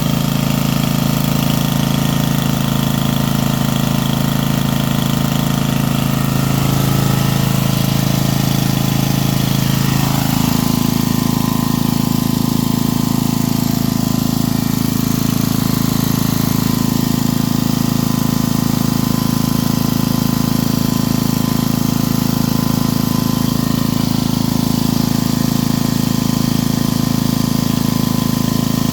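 Coleman Powermate 4000 W portable generator's 8-horsepower engine running steadily, its tone shifting slightly about ten seconds in.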